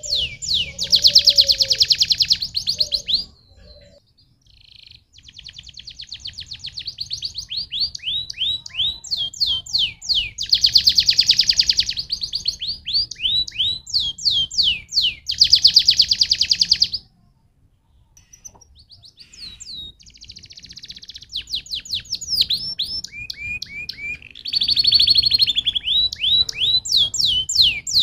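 Domestic canary singing: long phrases of rapid trills and fast repeated down-sliding notes, broken by two short pauses.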